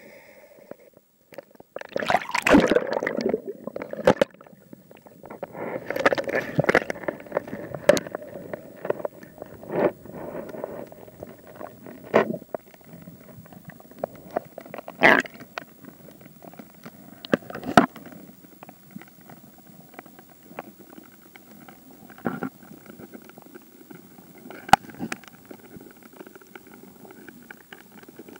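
Underwater water noise picked up through a camera housing as a freediver descends: muffled gurgling and rushing water, with sharp irregular knocks and thumps scattered throughout.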